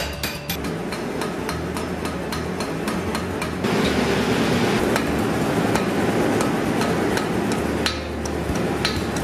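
Hammer blows on hot steel, then a gas forge's burner running with a steady roar for about four seconds, then hammer strikes on the anvil again near the end.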